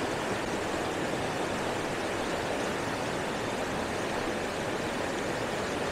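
Mountain river rapids rushing: a steady, even roar of fast water over boulders.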